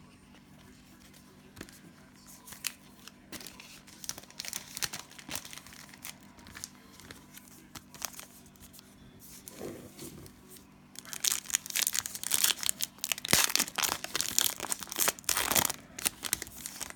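Cellophane wrapper of a Panini Prizm basketball Cello pack crinkling in the hands with scattered crackles. About eleven seconds in it turns into a dense, loud spell of crinkling and tearing as the pack is torn open.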